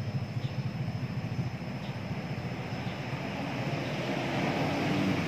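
A steady low mechanical drone in the background, with a faint steady high whine above it.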